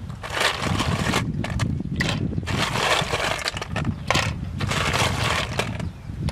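Handfuls of snail shells clattering and rattling against each other and a steel bowl and pot as they are scooped and dropped in, in uneven bursts, over a steady low rumble of wind on the microphone.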